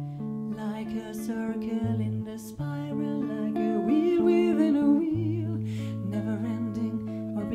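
Archtop jazz guitar playing a slow intro of held chords and bass notes, joined about halfway through by a woman's voice singing softly without words, with vibrato.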